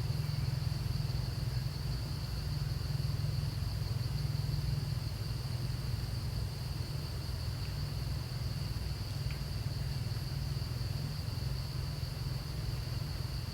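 Outdoor ambience: a steady, high-pitched insect drone over a constant low rumble, with one faint tick about nine seconds in.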